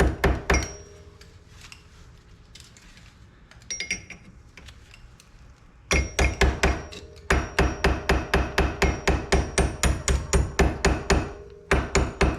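Hammer tapping a steel cotter pin through the hole in an ATV's rear axle end, in quick runs of light metallic strikes, about five a second. A pause of a few seconds comes early on, with only a couple of taps, before the longest run.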